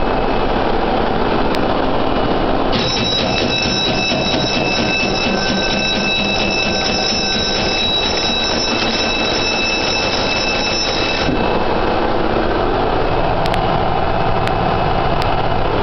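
Loud, steady roar of a ship's engine-room machinery. About three seconds in, an electric alarm bell starts ringing rapidly and keeps ringing for about eight seconds before it cuts off.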